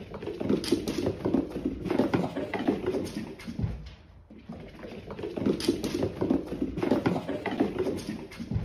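Cats' paws pattering and thudding on a hard wood floor as they gallop along, in two runs with a quieter break about halfway through.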